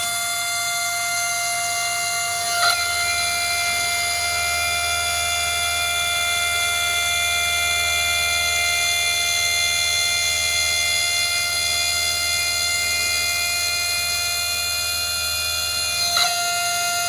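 CNC glass drilling and milling machine running with a steady high whine. A lower hum cuts in with a click about three seconds in and cuts out with another click near the end.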